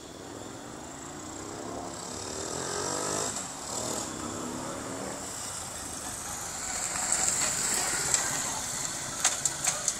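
Honda Z50 mini trail's small single-cylinder four-stroke engine running as the bike rides up. Its note climbs in pitch twice as it accelerates and grows louder as it comes close. A few sharp clicks near the end.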